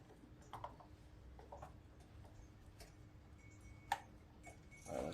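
Scattered light clicks and taps of parts being handled and fitted on the riding mower, with a sharper click about four seconds in, over a faint steady hum.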